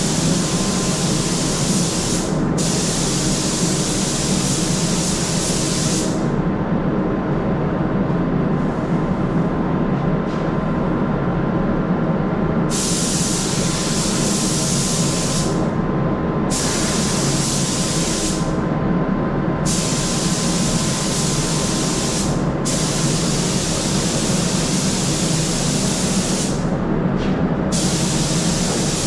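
Air spray gun hissing in repeated passes of a few seconds each, with short gaps between, as paint goes onto a car panel, over the steady running of a fan.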